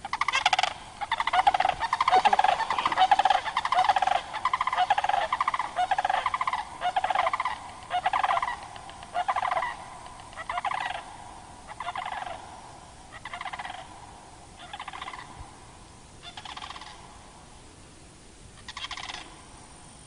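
Sandhill cranes giving loud, rolling, rattling bugle calls, fast and overlapping at first, then slowing to single calls about a second and a half apart that fade, with one last call near the end.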